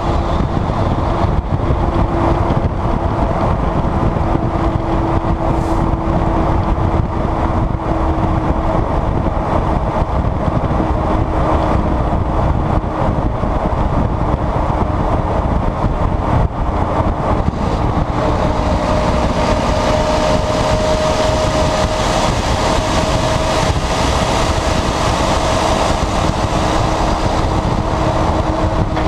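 Volvo FMX 460 truck's 13-litre six-cylinder diesel running at cruise through a broken, straight-piped exhaust, a loud steady drone with road and wind rumble. Its note shifts higher about two-thirds of the way through.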